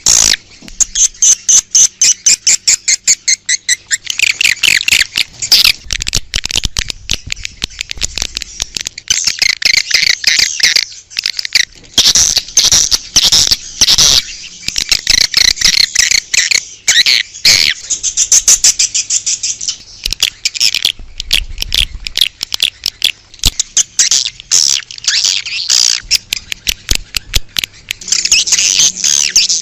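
Edible-nest swiftlets twittering: a dense, rapid, high-pitched chittering that comes in bursts with short gaps. This is the outdoor lure call played to draw swiftlets to a swiftlet house.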